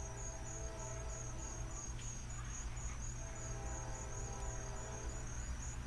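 A cricket chirping in an even, rapid rhythm of short high chirps, several a second, over a steady low hum.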